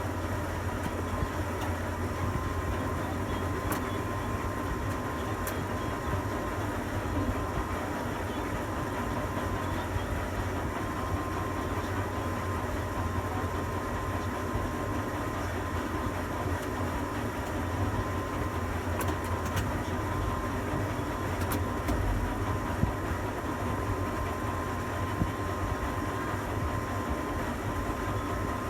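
Tower crane machinery running, a steady low mechanical hum with a constant high whine and a few light clicks.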